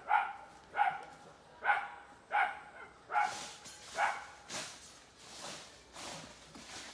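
A dog barking over and over, roughly one bark a second, with the barks turning rougher and fainter after about three seconds.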